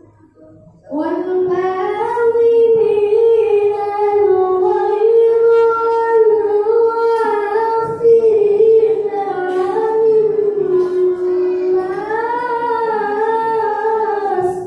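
A boy chanting a Qur'an recitation (tilawah). It is one long held phrase that begins about a second in, with the pitch bending and wavering in ornamented turns, and it ends just before the close.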